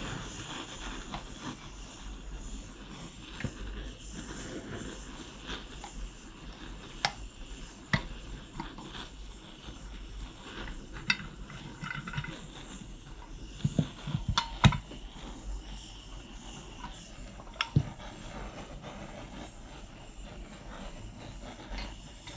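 Scattered metallic clicks and knocks of hand tools working on a Piaggio Si moped engine's crankcase as its halves are split apart, with a quick run of louder knocks about two-thirds of the way through.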